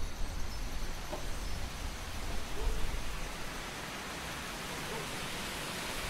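Wind blowing: a steady rushing hiss with gusty low rumbles in the first half, settling into an even rush near the end.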